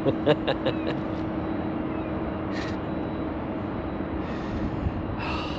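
Steady low mechanical hum of a distant engine, with a few light clicks in the first second.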